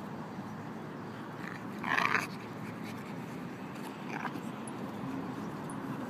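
Boxer dogs wrestling in play, with one short loud dog vocalization about two seconds in and a fainter one just after four seconds.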